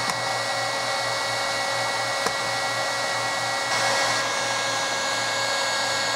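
Electric heat gun running steadily, blowing hot air to shrink heat-shrink tubing onto a crimped copper lug on 4-gauge battery cable: an even fan hiss with a whine of several steady tones. A small click about two seconds in.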